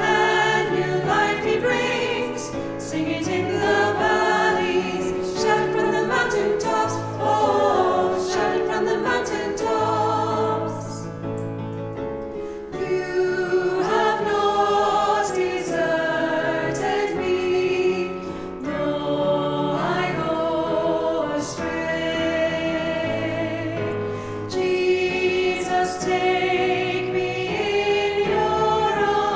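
A choir singing a hymn, with sustained low notes beneath the voices.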